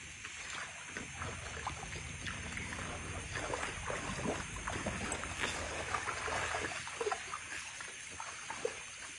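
Shallow stream water splashing and sloshing in small, irregular bursts around legs wading in it, over a low steady rumble.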